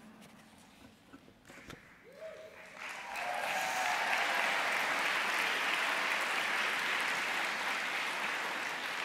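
Audience applauding, starting about three seconds in and holding steady. Before it there are a few faint clicks against near quiet.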